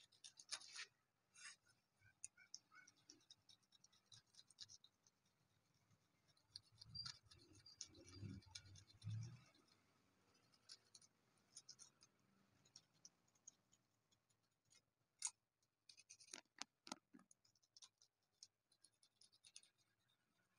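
Faint, intermittent scratching of a small metal blade scraping softened, dried gold acrylic paint off a polished black stone tombstone, clearing the excess around the engraved lettering. A few low bumps come about eight to nine seconds in.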